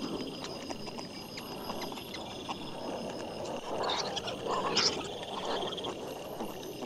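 Wild boar sow and piglets grunting and rooting as they feed, with many small clicks and rustles, sped up fourfold so the grunts come out high and quick. A louder burst of calls comes about four seconds in.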